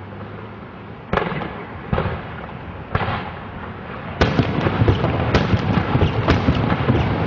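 Fireworks going off: three single sharp bangs about a second apart, then from about four seconds in a rapid, continuous string of cracks and bangs.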